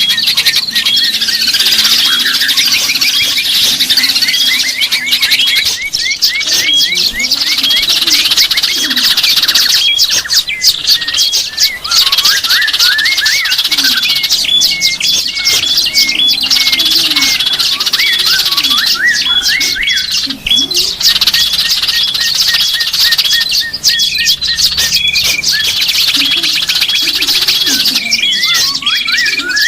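Chorus of many small songbirds chirping and calling at once, a dense, continuous mix of quick high notes and short repeated whistles. It is a bird-lure recording of small wild birds.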